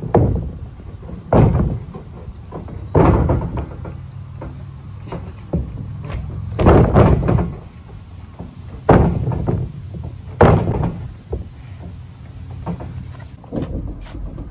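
Heavy thuds of wrestlers hitting the mat of a wrestling ring, about half a dozen hits spaced a second or more apart.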